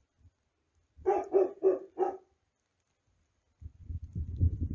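A dog barking four times in quick succession about a second in. Near the end a low rumble starts.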